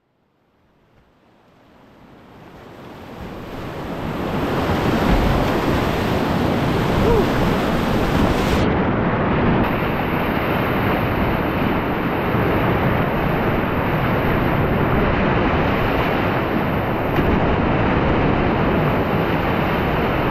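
Whitewater river rapids rushing steadily around a kayak in the current, fading in from silence over the first few seconds. About eight seconds in, the higher hiss drops away suddenly.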